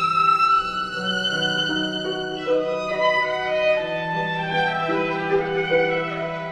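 Background music: a slow violin melody of long held notes over a sustained low accompaniment.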